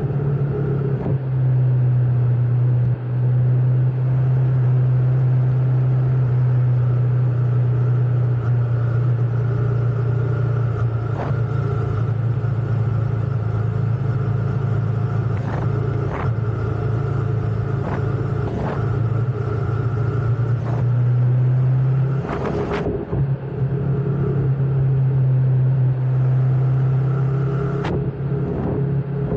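Motorcycle engine running steadily while riding, its note dropping slightly about a second in and rising again a little past twenty seconds. A brief knock sounds shortly after the rise.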